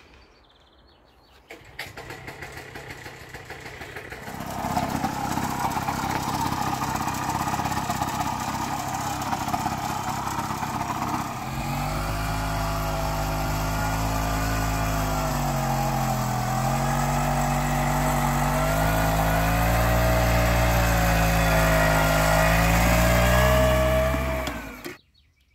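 Two-wheel walk-behind tractor's engine running as it pulls a plough through the soil to cut a planting furrow. In the second half its pitch wavers up and down with the changing load, and it stops abruptly near the end.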